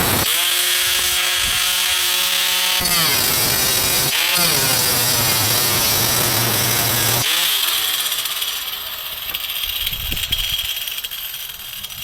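Electric power tool cutting aluminum sheet: the motor runs steadily under load, dips in pitch and picks up again about three to four seconds in, and the cutting gets quieter after about seven seconds.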